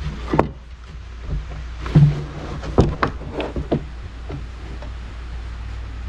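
A string of wooden knocks and clatters as freshly sawn lumber boards are handled and a scraper is set down on a board, the loudest about two seconds in, over a steady low hum.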